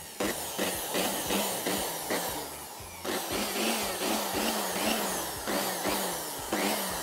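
Handheld electric blower running steadily, blowing air onto the charcoal in a barbecue grill to fan the fire.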